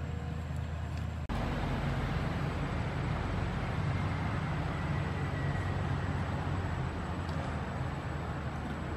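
Steady outdoor background noise, a low rumble with a hiss over it, changing abruptly a little over a second in to a louder, denser rumble.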